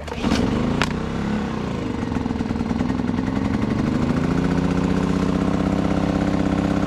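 Small four-stroke portable generator engine starting and settling into a steady run, freshly serviced with new oil. Two sharp clicks and a wavering pitch in the first second or so, then an even, steady running note.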